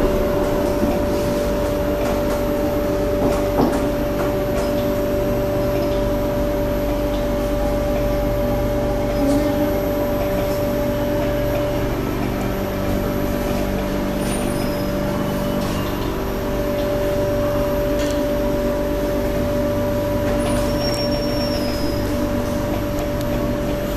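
Interior ride noise of an SMRT C751B (Kawasaki–Nippon Sharyo) electric metro train slowing to a stop at a station platform: a steady rumble with several hum tones that shift about halfway through.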